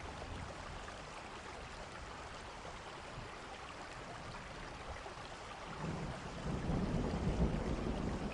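Steady rain, with a low rumble of thunder swelling in about two-thirds of the way through.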